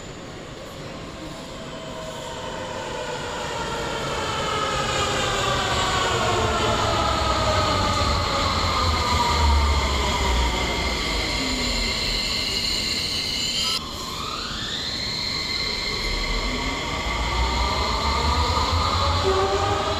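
Bengaluru Namma Metro train's electric traction drive whining over a low rumble, the pitch falling as it slows into the platform. After a break about two thirds of the way in, a train pulls away with a rising whine.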